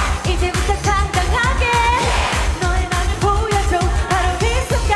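K-pop dance song with a steady, heavy beat and a woman singing over it.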